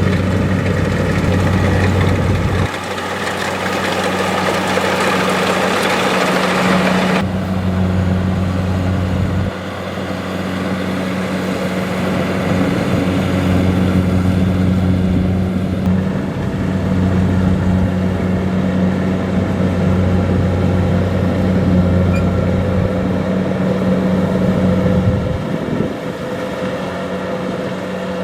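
Kubota DC-70 Plus rice combine harvester running: a steady diesel engine drone over a broad hiss of machinery. The tone and level shift abruptly a few times, and the high hiss drops away sharply about seven seconds in.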